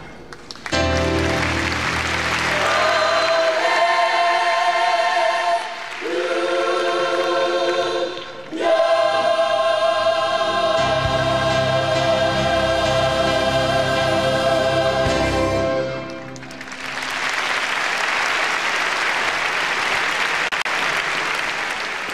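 Choir singing with instrumental backing, closing on a long held chord; then the audience applauds for the last several seconds.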